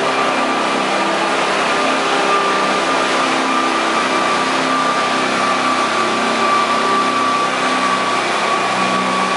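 Riding lawn mower engine running steadily under load as it pulls, its pitch shifting a little, with a steady high whine over it.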